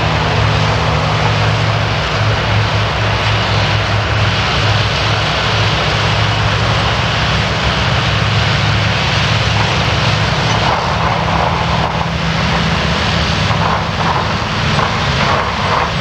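Tractor engines and a silage harvester running steadily together under load. A low engine drone carries a dense rushing noise from the cutting and chopping of grass.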